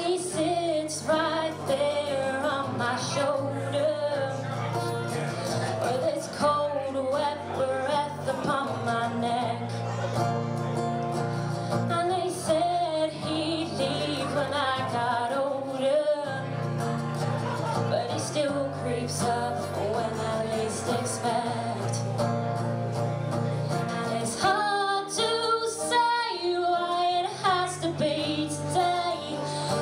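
Live acoustic duo song: a woman singing lead over acoustic guitar, heard through a stage PA. About 24 seconds in the low guitar accompaniment drops away and the voice carries on nearly alone.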